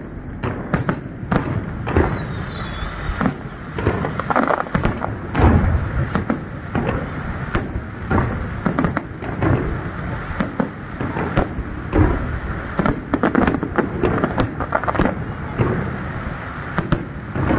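Aerial firework shells bursting in quick, irregular succession, several sharp bangs a second over a continuous rumble.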